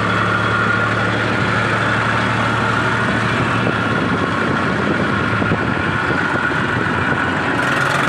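Tractor's diesel engine running steadily while the tractor moves along the road, a low hum with a steady high whine over it.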